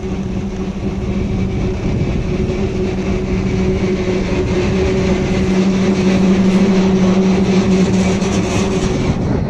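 Snowboard sliding and scraping over snow, with wind noise on the camera's microphone, under a steady low mechanical hum that holds one pitch throughout.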